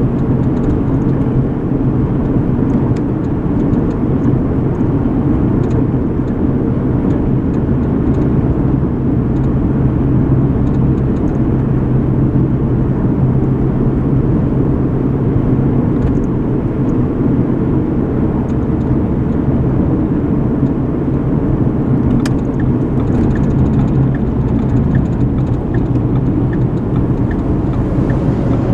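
Steady road and engine noise inside a moving car's cabin. About twenty-two seconds in there is a click, followed by faint, regular ticking about one and a half times a second.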